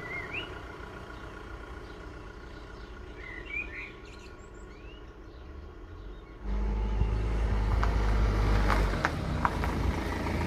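Small birds chirping a few short rising calls over a quiet outdoor background; about six seconds in, a much louder steady low rumble starts, with a few sharp clicks over it.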